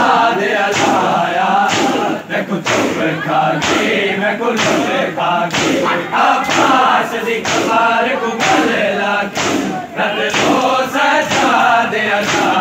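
Crowd of men beating their chests with open hands in unison (hath ka matam), about one loud slap a second, while chanting a mourning nauha together.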